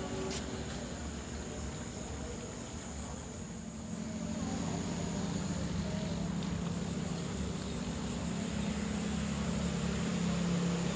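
Road traffic going past, mostly motorbikes: a steady engine drone that swells from about four seconds in and grows louder toward the end as a vehicle approaches. Faint insect chirring runs underneath.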